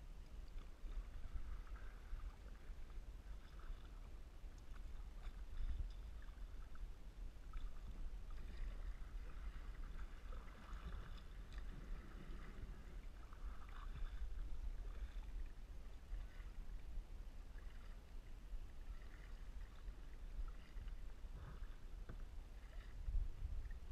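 Kayak paddle dipping and splashing softly in calm water, stroke after stroke, from a plastic sit-on-top kayak, over a steady low rumble. One brief louder sound comes near the end.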